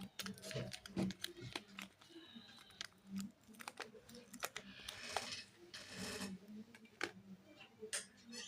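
Soap bars and their wrappers being handled during unboxing: scattered light taps and clicks, with two longer rustles of wrapping about five and six seconds in.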